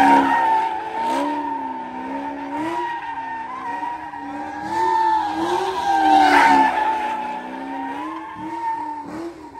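Chevrolet Camaro spinning donuts: the engine revs up and down in waves while the rear tyres squeal steadily on the pavement.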